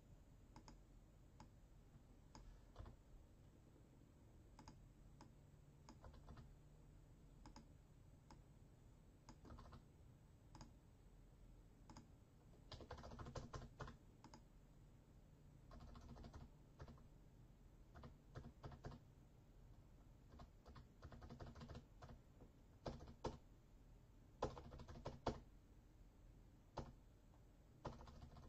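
Faint typing on a computer keyboard: scattered single keystrokes and short runs of rapid key clicks.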